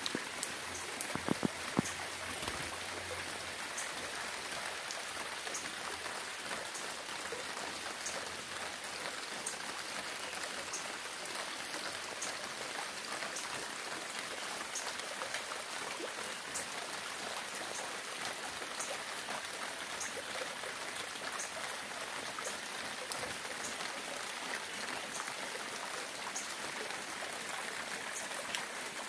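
Steady rain falling, with many separate drops ticking over the even hiss of the downpour; a few louder drop hits about a second or two in.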